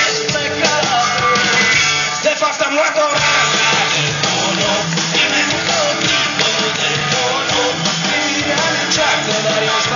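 Live band playing through a PA system, heard from within the audience: amplified guitars with a singer's voice, loud and steady.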